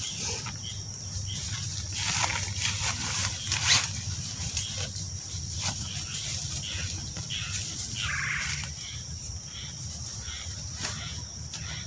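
Rustling and crinkling as a blue plastic bag is handled, with scuffs and steps in dry leaf litter. A steady high-pitched whine runs underneath.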